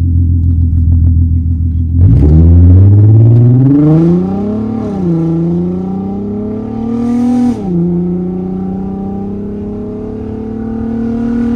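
Volkswagen Golf R32's 3.2-litre VR6 engine heard from inside the cabin: a steady low drone, then about two seconds in it comes on hard and the revs climb, loudest at first. The pitch drops suddenly twice, about five and seven and a half seconds in, as it upshifts, then climbs more slowly in the higher gear.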